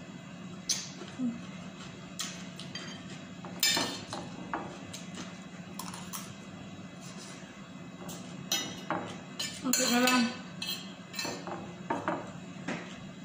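Metal spoon and fork clinking and scraping against a ceramic plate while eating, in irregular short strokes, with a longer, louder run about ten seconds in. A steady low hum sits underneath.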